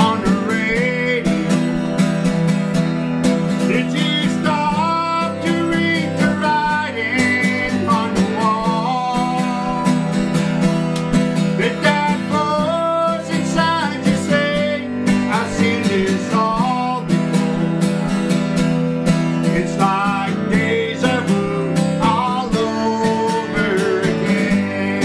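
A man singing with his own strummed acoustic guitar, in a country style.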